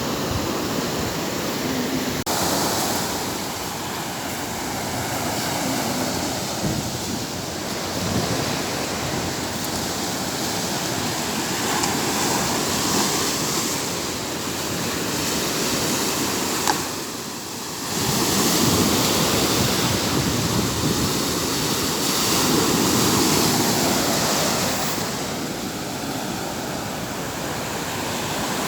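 Sea waves washing onto a beach: a steady rush of surf that swells and eases every few seconds, briefly dropping away about 17 seconds in.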